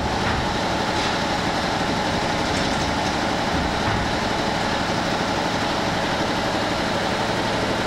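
Steady machinery noise: a constant hum and whir that runs on without a break or change.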